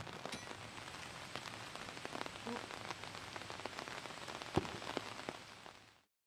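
Steady fine patter like light rain falling outdoors, with a few sharper knocks scattered through it, the loudest about four and a half seconds in. It cuts off abruptly near the end.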